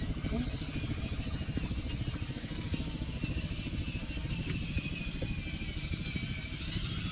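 Radio-controlled model truck running: a steady, fast low rumble with a faint high whine over it.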